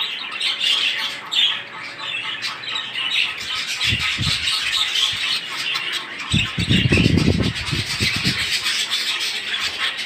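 A flock of budgerigars chattering and squawking continuously in a wire-cage aviary. Bouts of low rumbling noise come about four seconds in and again from about six to eight seconds.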